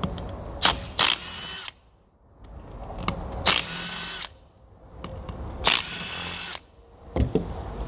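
Handheld power driver spinning out the bolts of a Honda B-series cylinder head's VTEC solenoid assembly: three short whirring runs, each under a second, a couple of seconds apart.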